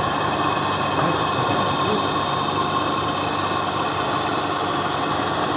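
Test bench running a permanent-magnet generator on its drive at steady speed: a constant machine running noise with a steady high whine.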